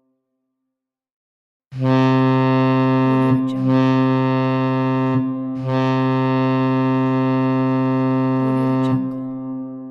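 Ship's horn blowing: a low, steady blast starts about two seconds in, breaks briefly near the middle, then stops near the end and fades away with a reverberant tail.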